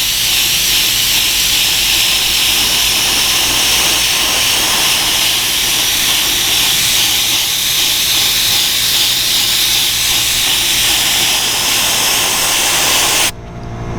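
Air spray gun hissing steadily as it mists dye onto vinyl, its air turned up high for fine droplets that dull the finish; the hiss cuts off suddenly near the end.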